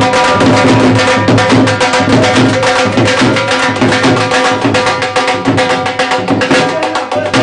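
Dhol drums beaten in a fast, steady rhythm, with a held melodic tone sounding underneath.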